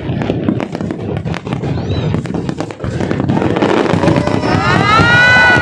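Fireworks display going off: a dense run of sharp cracks, pops and bangs. Near the end, a drawn-out high tone rises and then holds over the crackle.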